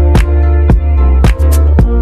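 Background music with a steady drum beat, a heavy bass and sustained pitched notes.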